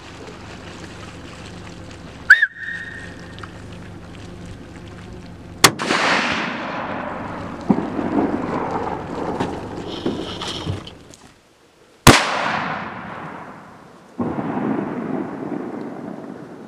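Three rifle shots fired at a moose: one near the start, another about three seconds later, and a third after a further six seconds. The second and third each trail off in a long rolling echo across the river.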